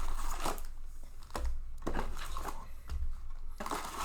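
Plastic trading-card packaging crinkling as it is handled, in irregular crackles.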